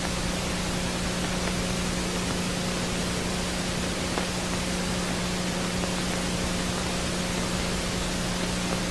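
Steady hiss of recording noise with a low, constant electrical hum underneath.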